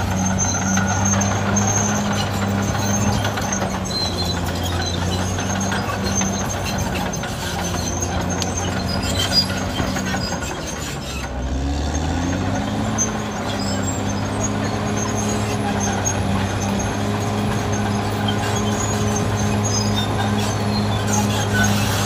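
Caterpillar D6R XL bulldozer's diesel engine running steadily at working speed. About halfway through, the engine speed sags for about a second and then climbs back up.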